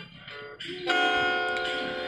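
Guitar accompaniment between sung lines: quiet at first, then a strummed chord just under a second in that rings on.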